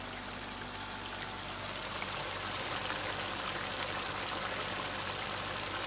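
Thick potato curry simmering and bubbling in a steel pot, a steady soft hiss with fine crackle.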